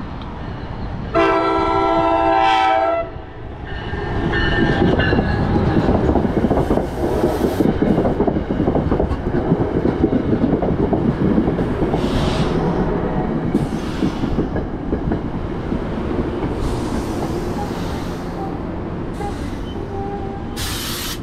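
NJ Transit ALP-45DP locomotive sounding its chime horn: a long loud blast about a second in, then a shorter, fainter one. Then the train passes close by, with rumble and wheel clatter of the passenger coaches over the rails.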